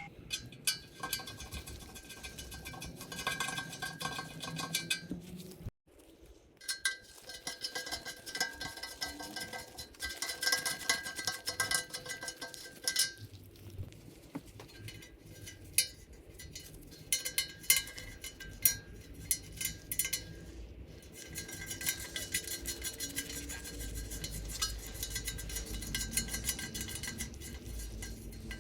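Repeated small metallic clicks and clinks of a thread tap and socket being turned in the frame's M6 threaded holes to clean and chase the threads. The sound drops out briefly about six seconds in.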